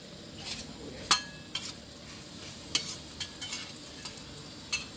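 Roti frying on a flat steel griddle, sizzling steadily, with several sharp clicks of metal spatulas striking and scraping the griddle; the loudest click comes a little after a second in.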